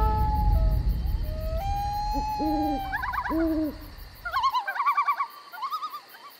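Night soundscape: a long howl trails off, then an owl hoots twice under a held howling tone, followed by rapid warbling calls. A low rumble underneath cuts off suddenly a little past halfway.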